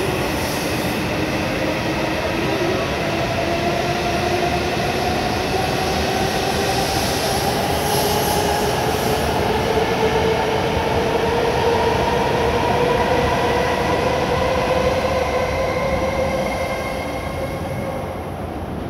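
Hokuriku Shinkansen high-speed train pulling out of the station: its traction motors whine in a slowly rising pitch as it gathers speed, over a steady rush of the passing train. The sound fades near the end as the last car goes by.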